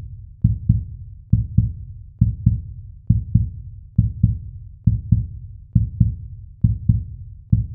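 Outro music made of a low, heartbeat-like double thump, about one pair a second, with nothing else over it.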